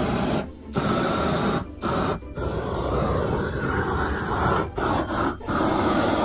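Hose-fed propane torch running with a steady rushing roar as its flame scorches the surface of carved wood. The sound drops out briefly several times.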